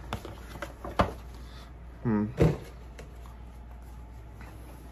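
Handling of a cardboard hat box being opened and a snapback hat lifted out: a few light knocks and clicks of the box, the sharpest about a second in, with a short murmur from the man around two seconds in.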